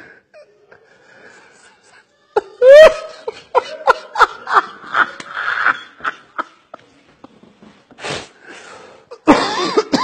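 A man laughing uncontrollably: faint at first, then about two and a half seconds in he bursts into a loud, rising, high laugh that breaks into a run of short rapid pulses. A loud breathy burst comes near the end.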